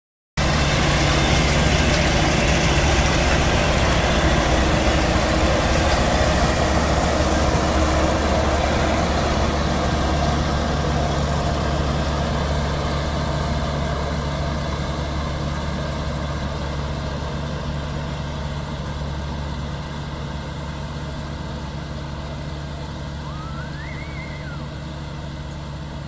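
Kubota ER112 combine harvester running as it cuts paddy rice: a steady engine hum with machinery whir, fading gradually as it moves away. A short rising and falling whistle is heard faintly near the end.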